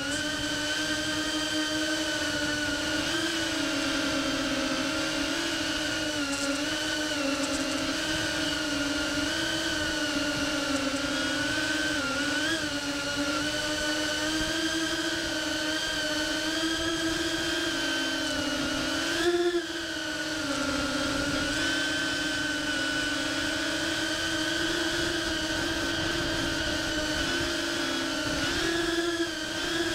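GEPRC CineBot30 3-inch ducted FPV cinewhoop's motors and propellers whining in flight, the pitch wavering with the throttle. A short burst of throttle lifts the pitch and loudness about 19 seconds in, and again near the end.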